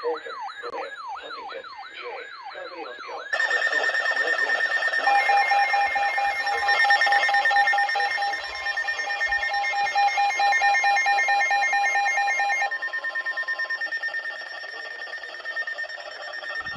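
Electronic emergency alert tones from alert devices: a fast warbling wail, about four warbles a second, for the first three seconds. About three seconds in, several steady and beeping alert tones start at once and overlap. Some of them cut off near the end.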